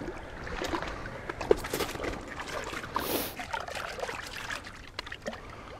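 Brook trout splashing and thrashing in the slushy water of an ice-fishing hole as a hand reaches in to grab it: irregular splashing and trickling water.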